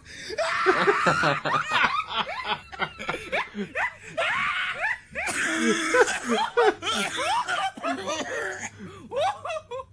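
People laughing hard in long, high-pitched fits, with many quick squealing rises in pitch.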